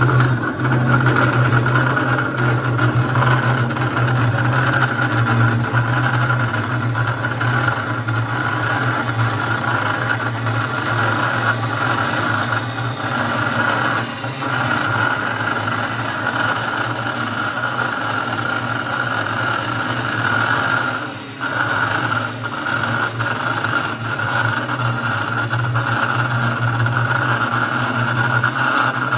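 RF-250S manual cold saw running and cutting through a metal pipe under coolant: a steady motor hum with a higher steady tone above it, dipping briefly about two-thirds of the way through.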